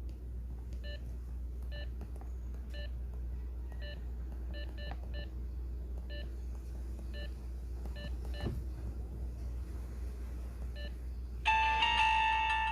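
Samsung SGH-T629 mobile phone giving about a dozen short, identical key-press beeps at uneven intervals. About a second before the end, a ringtone starts playing: a bright, chiming melody, louder than the beeps.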